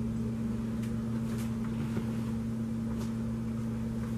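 Steady low machine hum from a background appliance or motor, with a few faint light ticks.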